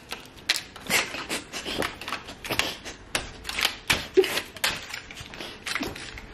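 A run of irregular sharp clicks and plastic crackles as an empty Fevikwik blister card is pushed and trodden about on floor tiles by a bare foot.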